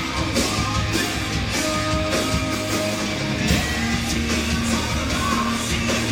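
Live rock band playing loudly through a PA: distorted electric guitars, drums and a male lead vocal.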